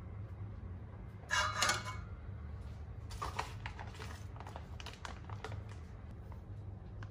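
Light kitchen handling sounds during baking prep: a brief scrape or rustle about a second in, then a run of irregular light clicks and taps, over a steady low hum.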